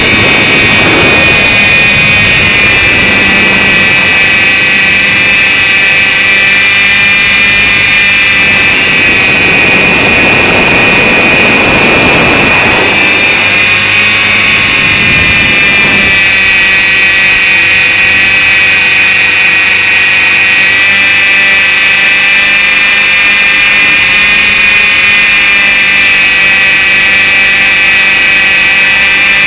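Align T-Rex 450 Pro electric RC helicopter in flight, heard from a camera mounted on its own frame: a loud, steady high whine from the brushless motor and drive gears, with the pitch wavering slightly as the power changes. A rushing noise rises and falls through the first half.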